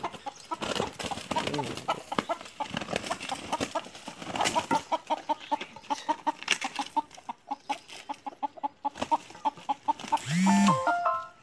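Desi hens clucking in rapid runs of short notes, several a second, with sharp scuffling knocks in the first few seconds and a loud squawk near the end, as hens fight.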